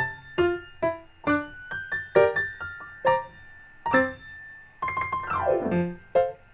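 Background piano music: single struck notes in a gentle melody, with a quick descending run of notes near the end.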